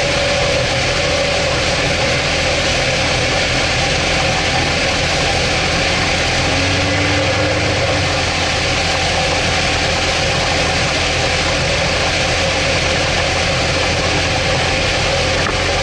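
Evinrude 225 H.O. two-stroke V6 outboard running steadily at planing speed under towing load, mixed with the rush of water and spray from the wake.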